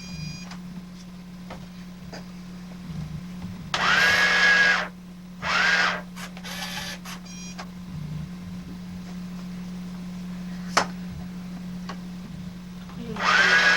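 Small electric motor of a toy checkout register's conveyor belt running with a steady hum, broken by two louder noisy bursts about four and five and a half seconds in, and a few light clicks, one sharp click later on.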